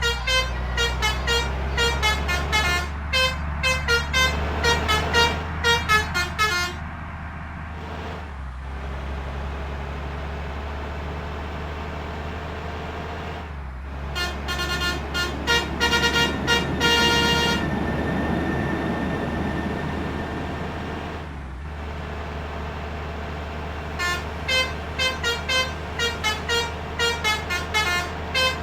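Indonesian bus telolet 'basuri' multi-tone musical air horn playing quick stuttering runs of notes, over the steady low drone of the bus engine. The runs stop about a quarter of the way in, and the horn returns about halfway with a held, dense chord of several tones. Quick note runs start again near the end.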